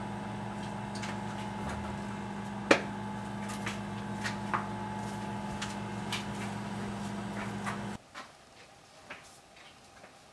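A steady machine hum with scattered clicks and knocks, one sharp click about three seconds in. The hum cuts off abruptly about eight seconds in, leaving quiet room tone with a few faint knocks.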